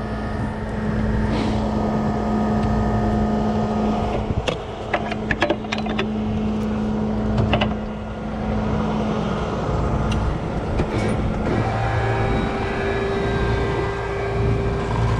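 Tow truck engine running steadily during a winch recovery, with a quick run of sharp metallic clinks from the cable rigging about four to eight seconds in. The engine note changes about twelve seconds in.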